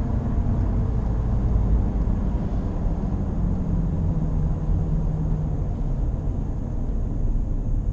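Inside a Nissan Qashqai J11, a loud, piercing drone over road rumble while the car brakes from about 110 km/h; the drone rises and falls with road speed and sinks in pitch, dying away after about five seconds. The owner takes it for a worn wheel bearing.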